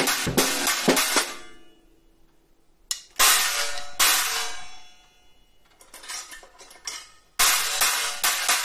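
Hi-hat made of a Sabian HHX 18-inch stage crash stacked over a Zildjian ZXT 18-inch total china, struck with a drumstick. It gives trashy, clanging hits that ring out and die away between pauses. A drum-kit groove ends about a second in, and a fast run of hits starts again near the end.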